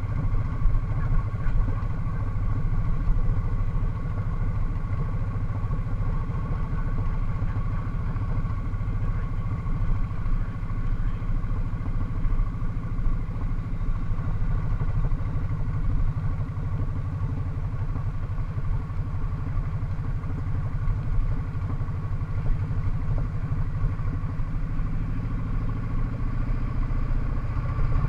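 Cruiser motorcycle engine running steadily under way, heard from the rider's seat.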